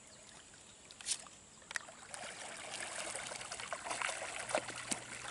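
Water sloshing and trickling with many small splashes as a person moves through a river, starting about two seconds in after a quiet start.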